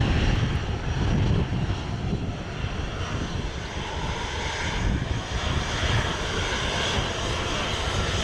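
Jet engines of a Boeing 737-800 airliner, a steady roar with a heavy, unsteady rumble in the bass.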